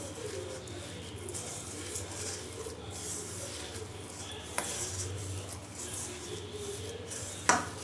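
Hands kneading and rubbing a moist mix of ground urad dal and spices in a steel plate, a soft scratchy rustle that comes and goes, with two short clicks, the second near the end. A faint low cooing can be heard in the background.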